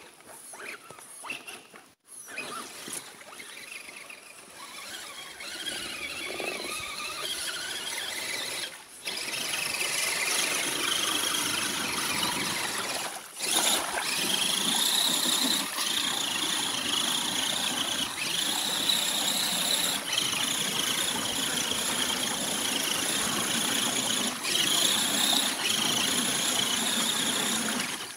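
High-pitched whine of an RC scale off-road truck's motor and gears as it drives through a muddy puddle, the pitch stepping up and down with the throttle. The sound breaks off abruptly a few times.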